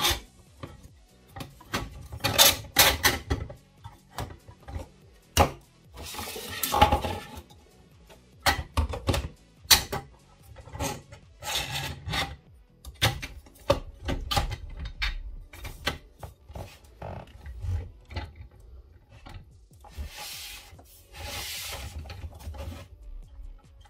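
3D-printed plastic turbine parts being handled and fitted together: irregular clicks, knocks and short scrapes of hard plastic on plastic as the rotor, axle and frames are assembled.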